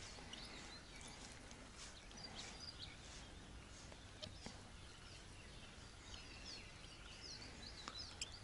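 Faint birdsong: scattered short chirps and whistles over quiet outdoor background, with a couple of soft clicks.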